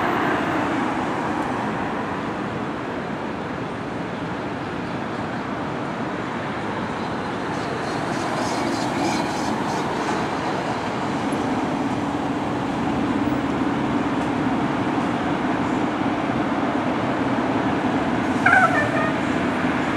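Steady street traffic, with a car passing at the start. From about two-thirds of the way in, a low steady drone from the 2020 Pierce Arrow XT pumper fire engine idling in its bay joins it. Near the end a brief, higher-pitched wavering sound rises over it.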